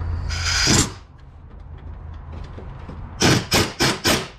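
Pneumatic air ratchet running in short trigger bursts on the transmission mount bolts: one burst about half a second in, then four quick bursts near the end.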